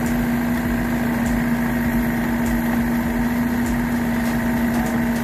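Rice combine harvester's engine running at a steady speed, with a constant hum.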